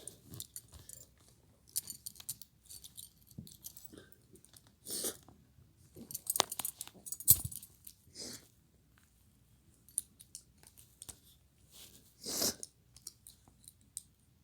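Steel handcuffs and chain clinking and rattling in irregular bursts, with small clicks of a handcuff key being fumbled toward the keyhole.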